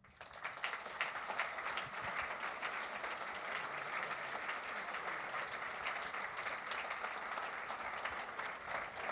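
Audience applauding, breaking out suddenly and holding steady as many hands clap together.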